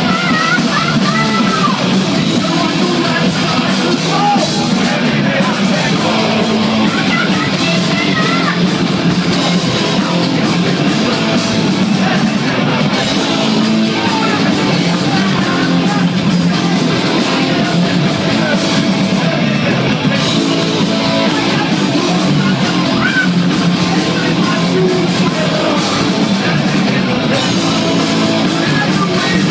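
Heavy metal band playing live: electric guitar and singing, loud and even, thin in the bass.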